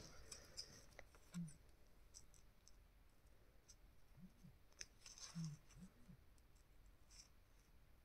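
Near silence with faint, scattered small clicks and scratches from handwork with paper at a table.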